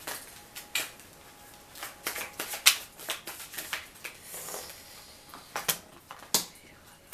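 A deck of tarot cards being shuffled by hand: soft riffling and rustling broken by irregular sharp snaps and clicks, the loudest about two and a half seconds in.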